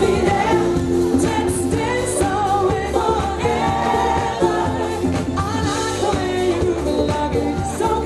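Live pop-soul band performance heard from the crowd: a woman sings lead over backing singers, keyboards, drums and guitars.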